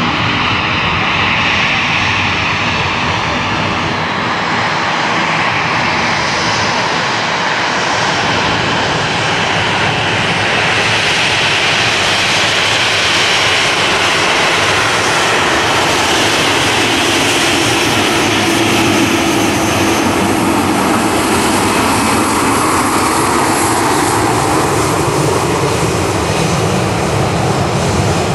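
Boeing 737 airliner taxiing past, its two CFM56 turbofans running at low taxi thrust: a steady jet whine over a rumble, the whine shifting in pitch as the aircraft passes and turns away.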